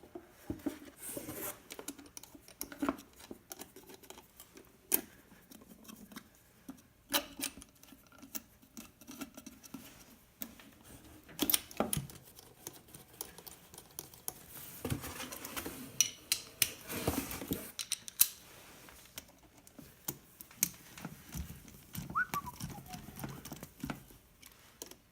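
Hand tools and bolts clicking and knocking while a valve cover is bolted down on an LS V8 with a hand ratchet. There are scattered single knocks and a longer run of rapid ratchet-like clicking past the middle.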